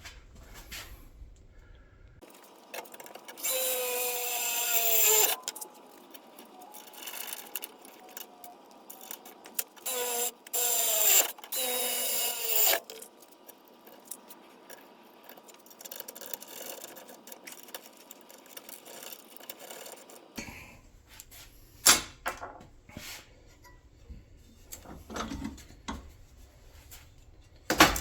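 Power drill running in two bursts, its motor pitch sagging and recovering as the bit bites in while drilling bolt holes, followed by scattered clicks and knocks of parts being handled.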